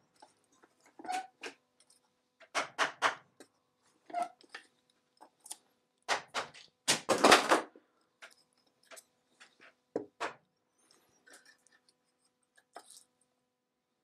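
Knocks on a soft wooden dowel held against a chair-back joint, driving apart a joint whose hide glue has been softened with vinegar. The taps come in short bursts of two to four, with pauses between them.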